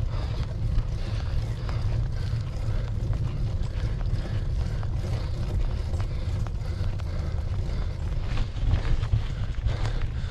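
Wind buffeting the microphone of a camera riding on a moving bicycle, heard as a gusty low rumble mixed with tyre noise on the road surface, with scattered light ticks and rattles.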